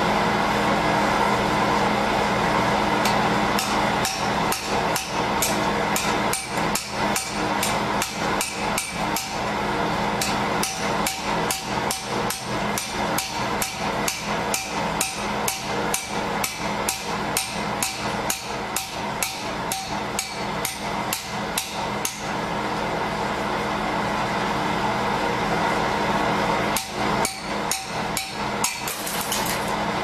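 A hand hammer beats on a Securam safe lock, striking again and again at about three blows a second, with a pause of a few seconds before a last flurry. A steady hum runs underneath.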